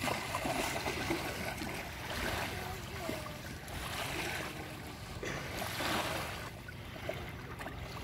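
Small sea waves lapping and washing onto a sandy shore, swelling every second or two.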